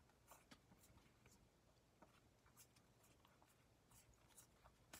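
Near silence with a dozen or so faint, uneven ticks and slides of glossy Panini Prizm trading cards being flicked through one by one in the hands.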